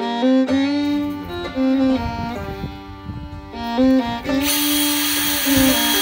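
Background music with a string-like melodic lead. About four and a half seconds in, a cordless power driver starts running on a bolt of a seed drill's closing wheel arm, a dense steady whir under the music.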